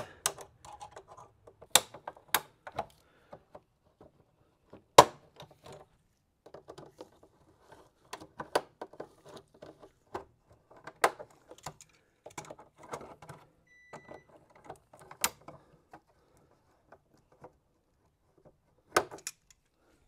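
Tongue-and-groove pliers clicking and clacking against a hose clamp on a plastic air intake hose, with handling rustle between the clicks. The clicks come singly and irregularly; the loudest is about five seconds in.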